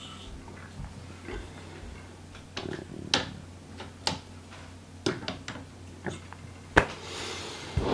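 Light plastic and metal clicks and knocks of a 1:20.3 scale model wheel and tie car being set onto model railway track and its wheels seated on the rails. The clicks are scattered and irregular, with the sharpest near the end.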